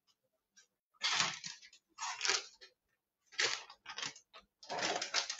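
Plastic bag crinkling and rustling in several short bursts as it is handled.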